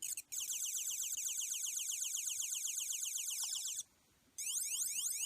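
LEGO 9-volt space sound brick playing an electronic sound effect: a rapid run of rising chirps. It cuts out just before four seconds in and starts again about half a second later.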